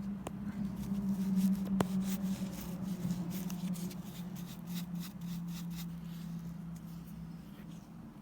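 Brass studs being rubbed clean by hand: a run of quick scratchy rubbing strokes with a couple of small sharp clicks, over a steady low hum.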